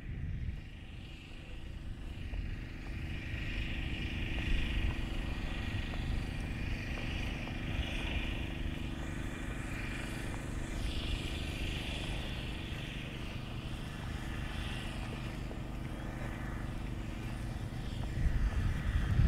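A motor vehicle engine running steadily with a low, even hum.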